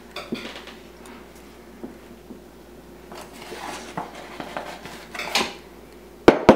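Glass measuring cup scooping flour from a paper flour bag: the paper rustles and scrapes with light clinks of the glass, then a couple of sharp knocks near the end.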